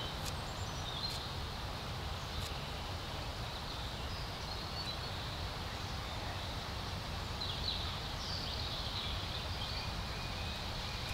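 Woodland ambience: small birds chirping now and then over a steady outdoor hiss and low rumble, with a few faint clicks of a knife slicing garlic on a wooden stump.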